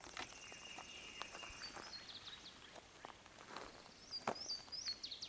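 Footsteps outdoors, with small birds chirping high-pitched; the chirps come in a quick run about four seconds in.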